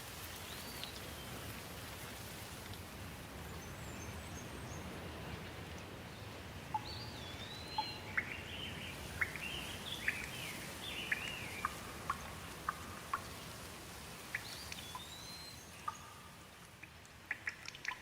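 Steady rain with birds calling over it: one whistled call near the start, a run of chirps and whistles through the middle, and another whistled call near the end. Short, sharp ticks of dripping water come in near the end.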